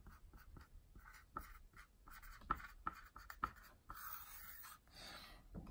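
A marker writing a word on a small whiteboard: faint scratching strokes and taps of the tip, with longer strokes near the end.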